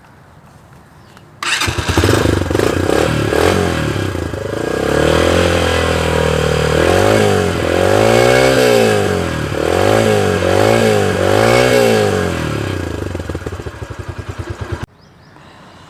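Yamaha YBR 125G motorcycle's single-cylinder four-stroke engine starting about a second and a half in and idling. It then revs once long and blips the throttle three times in quick succession, settles back, and stops abruptly near the end.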